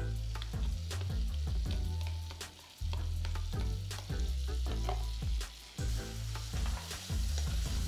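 Raw shrimp tipped into a skillet of hot melted butter, sizzling and spitting with many sharp crackles as they start to fry.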